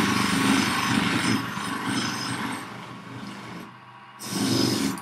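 Bench grinder running with a buffing wheel charged with abrasive paste, a steel kitchen knife pressed against it for polishing: a steady motor hum under a rough rubbing hiss. The sound dips briefly about three and a half seconds in, then picks up again just after four seconds.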